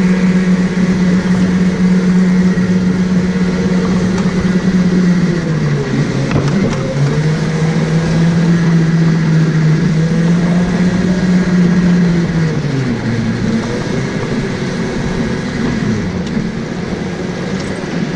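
Go-kart engine running at a steady high pitch, briefly dropping in pitch about six seconds in before picking up again. From about twelve seconds in the pitch falls away and the engine grows quieter as the kart slows.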